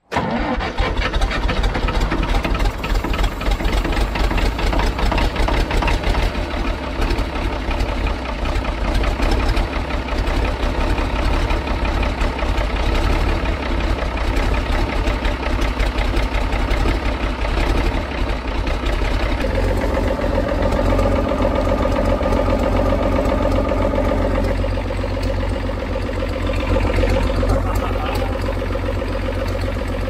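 International TD9 bulldozer's diesel engine catching and running rough on its first start after about fifteen years standing abandoned, its fuel system just bled of an airlock at the injectors. It goes loud and ragged at first, then settles into a steadier, more even run about twenty seconds in.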